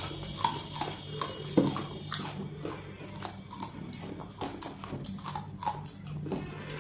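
Crisp crunching and chewing of raw green chillies being bitten into by two people, a rapid run of short sharp crunches, over a steady low hum.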